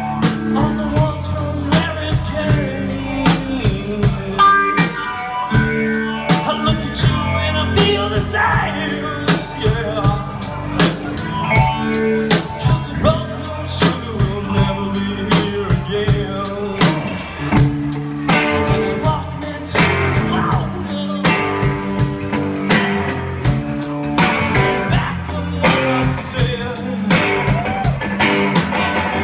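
Live rock band playing: a drum kit keeping a steady beat under electric guitars and bass, with a man singing into a microphone.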